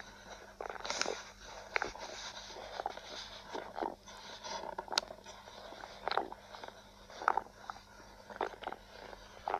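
Stomach growling: a string of short, irregular gurgles.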